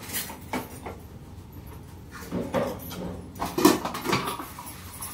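Kitchen clatter of steel utensils: a metal ladle stirring and knocking in a steel kadai, with dishes clinking at the sink. A handful of short knocks and clinks, the loudest about three and a half seconds in.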